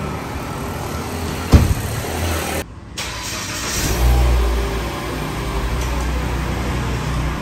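Mitsubishi Outlander's driver's door slams shut about a second and a half in. After a brief break, the engine starts about four seconds in and settles into a steady idle.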